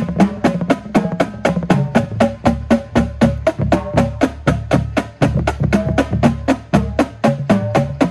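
Drum corps battery playing together: snare drums, tenor drums and tuned bass drums in a fast, even pulse of unison strokes, the bass drums giving pitched low notes under the snares' sharp cracks.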